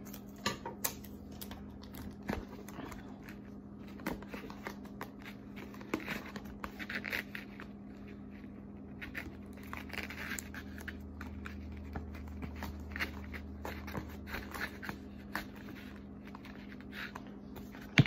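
Masking tape being pulled off the roll, torn and pressed down onto a paper plate: scattered scratching, rustling and tearing sounds.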